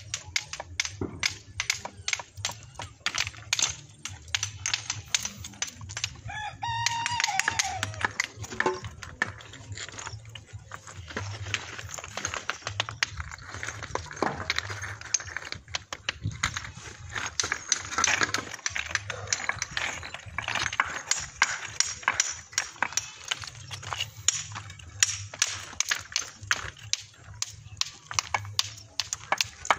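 A rooster crows once, about seven seconds in, with a falling call. Rapid sharp tapping clicks run on throughout from the stone-laying work on the pillar.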